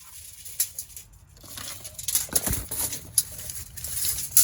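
Broken tape measure being handled: plastic case pieces and the loose tape rattle, click and crinkle in short irregular bursts, with a dull thump about halfway through.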